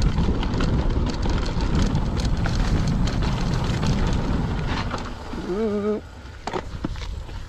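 Mountain bike rolling over a dry dirt singletrack: steady tyre and trail noise with constant rattling and clicking from the bike and the brush it passes. A brief wavering tone comes about five and a half seconds in, and the noise drops sharply about a second before the end as the bike slows.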